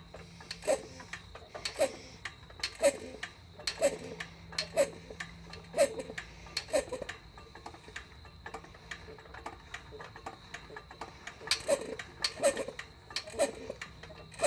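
Cornelius 3000 PSI piston compressor being turned slowly by hand, pumping: a sharp click with a short squeak on each stroke, about once a second, coming quicker near the end.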